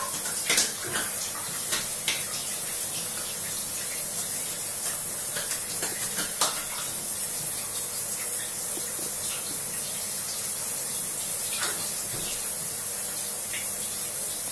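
Steady hiss of water running from a bath tap, with a few brief small splashes from the baby bath.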